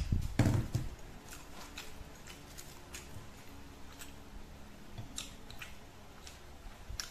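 A person chewing with wet mouth sounds and scattered clicks and smacks while eating by hand. A louder low thump comes about half a second in.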